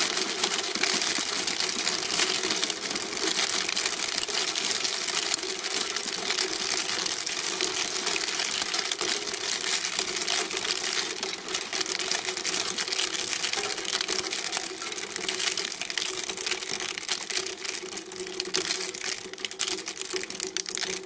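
Shredding machine chewing through material: a dense, continuous crackle of rapid crunches and clicks over the steady hum of its drive, thinning out a little past the halfway point.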